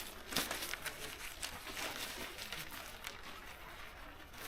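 Tent fabric rustling, with many small scattered clicks and ticks, as it is handled and moved about in.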